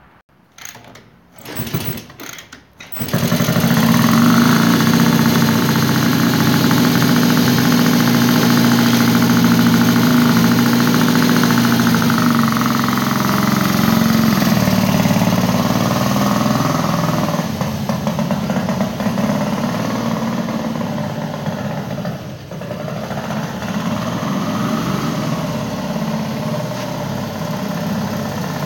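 Vintage Villiers motorcycle engine firing in a few short bursts, then catching at about three seconds and running steadily, the revs rising and falling. It gets quieter after about seventeen seconds as the motorcycle moves off.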